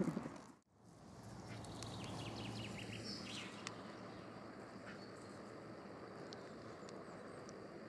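Faint outdoor ambience with a few light ticks and a faint high bird-like chirp, after a brief drop-out to silence about half a second in.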